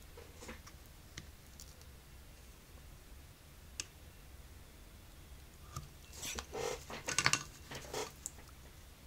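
Small leather pieces and a plastic template being handled and traced over on a cutting mat: a few faint ticks, then a cluster of light clicks and rustles about six to eight seconds in.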